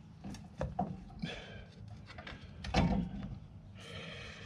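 Metal scraping, sliding and light knocking as a truck's rear wheel hub is worked off its axle spindle, with a louder clunk about three seconds in.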